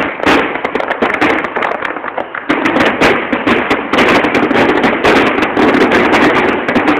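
Aerial fireworks exploding in rapid succession, a dense run of bangs over continuous crackling that grows thicker about two and a half seconds in: the closing finale barrage of the show.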